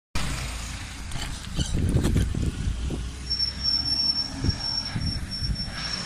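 Wind buffeting the microphone and road rumble while riding a bicycle along a street, with a few knocks and rattles in the first couple of seconds. A thin high whine joins about three seconds in.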